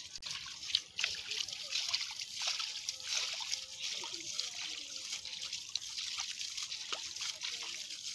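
Muddy water splashing, sloshing and dribbling as hands scoop and fling water out of a shallow puddle, with many small splashes and drips.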